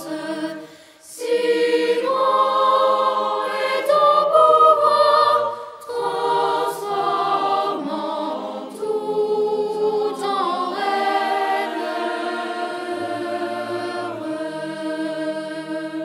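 Choir singing slow, sustained chords, with brief pauses between phrases about a second in and again around six seconds.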